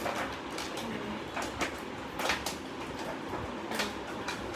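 Irregular light clicks and knocks of a drawing set and its packaging being handled, over a steady background hiss.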